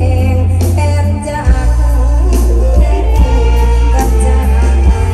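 Live Isan mor lam band music played loud through a large PA system: heavy, steady bass under electric guitar and a singing voice.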